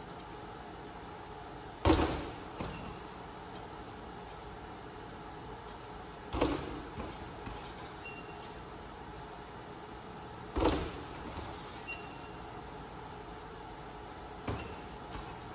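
Mini basketball knocking against a folding arcade double-hoop basketball game four times, about four seconds apart, each hit followed by one or two smaller knocks as the ball drops back down.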